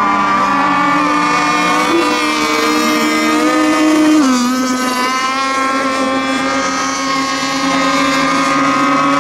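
Radio-controlled racing boat engine running at speed, a steady high-pitched whine that dips slightly in pitch about four seconds in.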